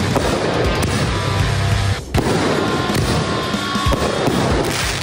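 Aerial firework shells bursting and crackling, under background music, with a sharp burst just after a brief lull about two seconds in.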